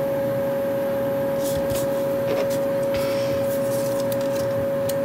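A steady background hum with a constant mid-pitched whine, with a few faint rustles of cardstock pieces being handled.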